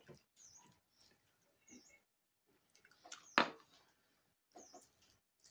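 Close-up eating sounds: chewing and wet mouth noises in short irregular clicks, with one louder smack about three and a half seconds in.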